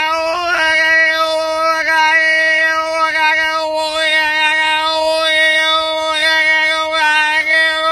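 A man's voice singing one long, steady held note.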